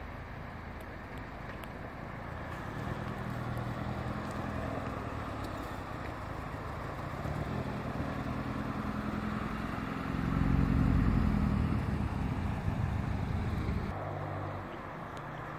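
Car engines and exhausts as cars drive slowly past, the engine note building from about three seconds in. One car passes loudest, with a low exhaust note, from about ten seconds in, and it drops away about fourteen seconds in.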